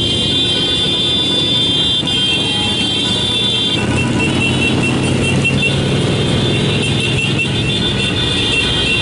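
Motorcycle engines and road noise running steadily during a group ride, with steady high tones above them that drop lower and start pulsing about four seconds in.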